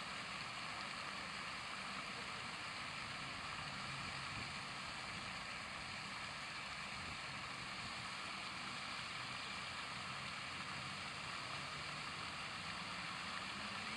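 Pond fountains spraying, a steady rush of water falling back onto the pond surface.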